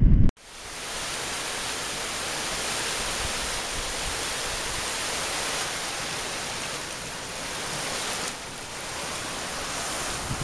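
A small stream of water rushing over stones in a narrow channel, a steady close splashing hiss. A brief blast of wind buffeting the microphone comes just before it, at the very start.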